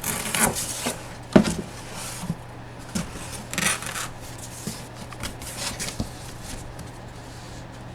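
Hands handling the box break's packaging and product: rubbing and scraping noises with scattered small clicks, and a sharp knock about a second and a half in.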